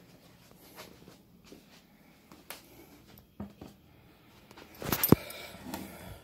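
Faint rustling and small taps from handling, then a loud knock with rustling about five seconds in as a plastic ketchup bottle is set down on a table.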